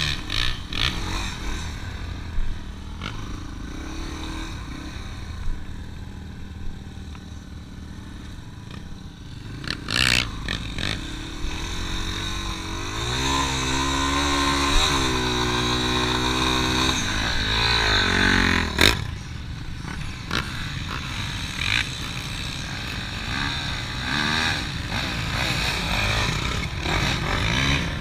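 Dirt bike engine heard from on board the bike as it is ridden over sand, under a noisy rush. About halfway through the engine revs up hard and falls back as the bike climbs a sand hill, and sharp knocks come about a third and two-thirds of the way in.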